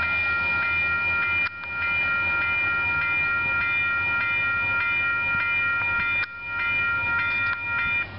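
Electronic railroad crossing bell ringing, a horrible-sounding steady electronic tone struck a little under twice a second. The sound drops out briefly twice.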